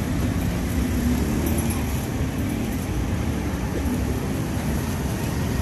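Steady low rumble of roadside traffic, with no separate events standing out.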